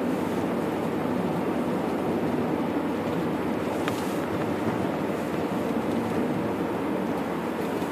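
Steady road noise of a car driving, tyres on a snow-packed road with the engine underneath, heard from inside the car.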